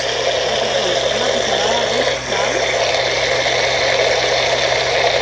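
Electric countertop blender running steadily on low speed, its glass jar holding rice blended with milk.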